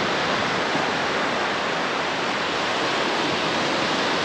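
Steady rushing noise of sea surf breaking on the beach.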